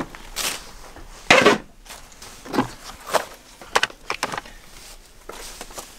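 Tools being handled: irregular knocks, clatters and rustles as a plastic tool case is opened and a cordless drill is lifted out, with the loudest knock about a second and a half in.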